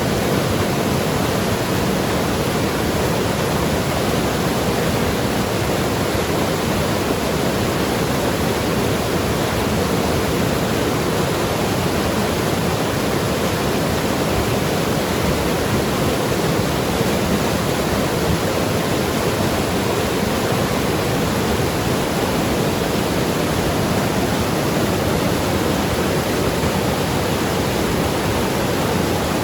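Mountain river rushing and gurgling over rocks, a steady, even rush of water.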